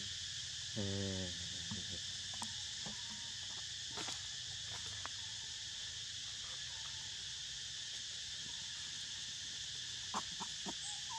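Steady, unbroken chorus of insects buzzing in the forest. About a second in comes a brief low grunt, and a few light clicks and ticks follow later, a cluster of them near the end.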